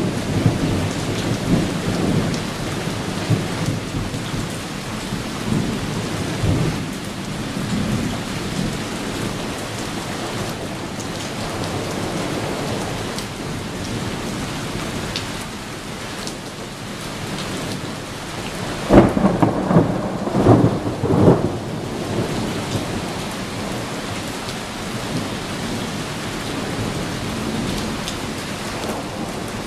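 Steady rain with thunder rumbling through the first several seconds. About two-thirds of the way through comes a loud, close thunderclap that breaks into several sharp cracks over two or three seconds.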